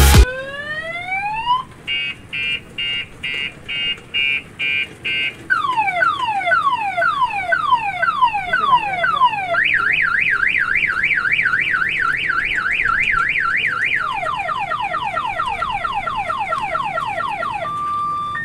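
Electronic car-alarm-style siren cycling through its tones. It starts with a rising whoop, then a run of quick beeps, then repeated falling sweeps and a fast warble. Faster falling sweeps follow, and two short steady beeps come near the end.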